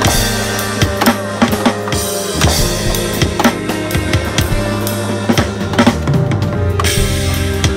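Electronic drum kit sounding EZdrummer 3 drum samples: rapid kick, snare and cymbal hits played along with a recording of the song, whose sustained bass and guitar notes run underneath. About six seconds in, the cymbals drop out for under a second, then the beat comes back with a hit.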